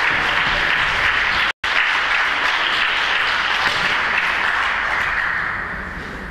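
Audience applauding, a dense even clapping with a split-second gap about a second and a half in, then tapering off near the end.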